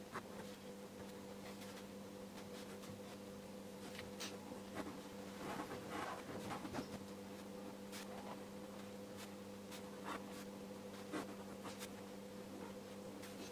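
Fineliner pen scratching on watercolour paper in short, irregular strokes with small taps, faint, over a steady low hum.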